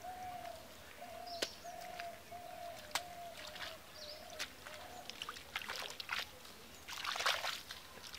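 Wet mud squelching and splashing as it is worked by hand, with scattered small wet clicks and a louder splash about seven seconds in. Over it, a bird repeats a short hooting note on one pitch about twice a second for the first five seconds, then stops.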